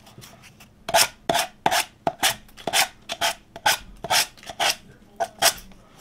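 Emery-board nail file scraped down along the edge of a wooden birdhouse, cutting off the excess decoupage napkin paper, in short repeated strokes about two a second that start about a second in.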